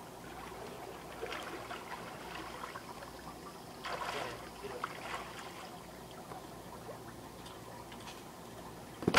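Water sloshing and trickling faintly in an above-ground pool, with a few soft splashes as a swimmer climbs out. Right at the end a sudden loud splash begins as someone lands in the pool.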